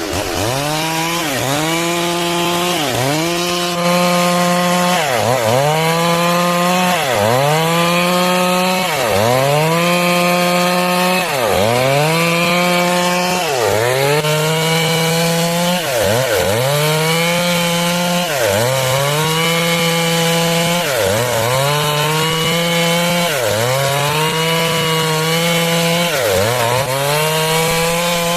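Stihl MS 382 two-stroke chainsaw cutting wood at high revs. The engine pitch dips and recovers about every two seconds as the chain is loaded in the cut.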